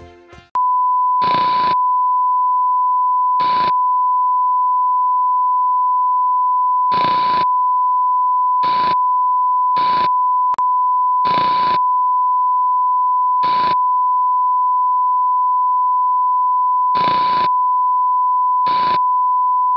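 Steady high beep: the reference test tone of a TV colour-bars screen. It starts about half a second in and is broken by about nine short bursts of static hiss at uneven intervals, with a split-second dropout about halfway through. Just before the tone starts, the tail of the tutorial's music fades out.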